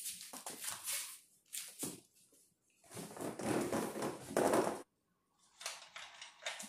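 Fabric and bedding rustling as someone moves about and sits down on a bed, loudest for a couple of seconds in the middle. Near the end comes a shorter spell of crinkling as a plastic water bottle's cap is twisted open.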